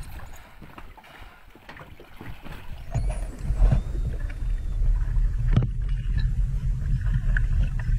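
Light water splashing at the surface with scattered small clicks. About three seconds in, a steady low underwater rumble of water against a submerged camera housing takes over, with a few faint clicks and a brief faint high whistle.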